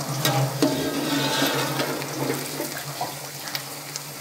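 Chopped onions sizzling in oil in a large steel pot, with a slotted metal spatula stirring and scraping through them in a few sharp clicks. A steady low hum runs underneath.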